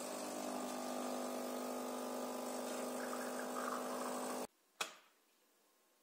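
Saeco X-Small espresso machine's vibration pump running steadily through the brewing cycle, a hum with a hiss of water, cutting off suddenly about four and a half seconds in. A single sharp click follows just after.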